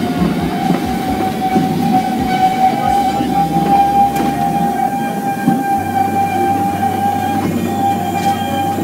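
Narrow-gauge train running through the woods. The wheels rumble steadily on the rails, and a steady high-pitched tone carries over them throughout.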